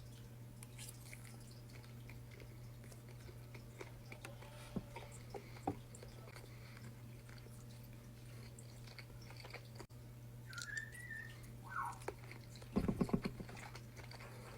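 Pet bird giving a few short whistles and chirps in the last few seconds, one rising then falling and one falling, followed by a brief buzzy chatter; a few faint clicks come earlier over a steady low hum.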